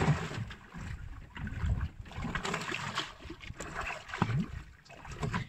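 Water sloshing and splashing against the hull of a small outrigger boat, with wind on the microphone and the rustle of a nylon handline being hauled in hand over hand as a fish is played; the noise comes in uneven surges about once a second.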